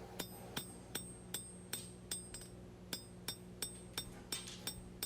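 Blacksmith's hand hammer striking hot 1084 high-carbon steel on the anvil in a steady rhythm of about three blows a second, each blow with a bright metallic ring, while drawing down the heel and bevel of a knife blade. A steady low hum runs underneath.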